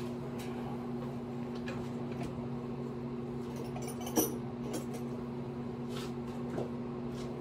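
A steady low electrical hum, with scattered light clicks and one sharper metallic clink about four seconds in, from handling around the hoisted engine.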